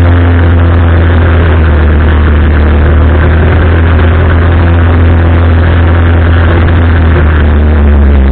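Arora Herkul 200cc ATV's air-cooled single-cylinder four-stroke engine running at a steady speed, with a loud, even low drone that holds its pitch.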